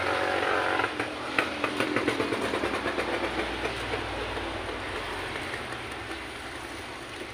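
Scissors snipping through the vinyl of a motorcycle seat cover, a run of quick cuts about four a second from about a second and a half in, over steady background noise with a low rumble.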